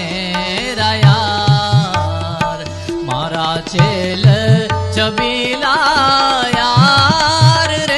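Indian devotional song: a sliding, ornamented melodic line over a held low drone, with tabla strokes thumping at irregular intervals.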